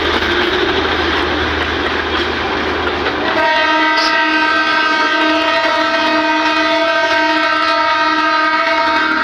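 Narrow-gauge Himalayan toy train running close by, a steady engine rumble and rail noise, then about three seconds in its horn sounds one long steady blast that holds for about six seconds.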